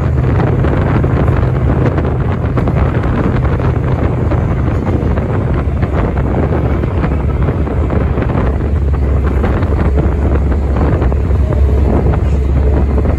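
Engine and road noise of a moving 1990s Sydney bus, heard from inside the bus. It is loud and steady, and the engine's deep drone drops lower about two thirds of the way in.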